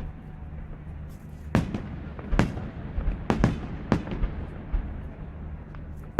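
Aerial fireworks shells bursting in a display: about five sharp bangs, starting about a second and a half in and spaced roughly half a second to a second apart, with fainter pops between them, over a steady low rumble.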